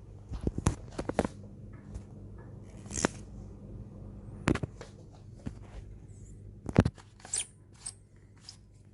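Scattered sharp clicks and knocks, in irregular clusters, over a steady low hum.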